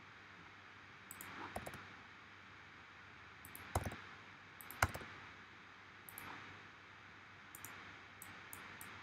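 Scattered clicks of a computer mouse and keyboard over a faint steady hiss, the two sharpest about four and five seconds in.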